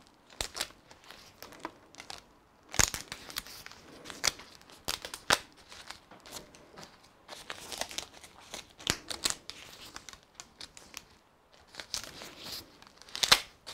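Thin plastic bag crinkling and crackling in irregular bursts as gloved hands twist it tight around a fermented pork roll and wind a thin band round it to bind it.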